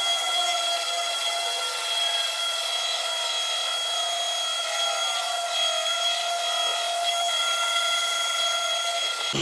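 Rupes polisher running steadily with a foam pad on car paint: a steady high motor whine over a rubbing hiss, its pitch dipping slightly now and then.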